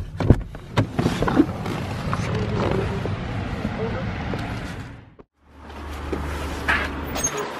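A car door's inside handle clicks and the door unlatches just after the start, followed by a steady rush of outdoor noise. After a brief cut to silence comes a low steady hum.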